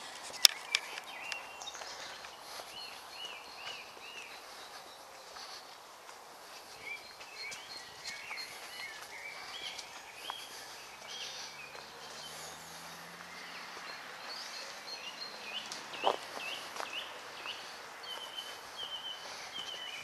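Several woodland songbirds singing, with short chirps and runs of repeated whistled notes throughout, and a quick series of four or five repeated notes near the end. Footsteps on a dirt path pass underneath, with a couple of sharp clicks, one just after the start and one about two-thirds of the way through. A faint low drone is heard midway.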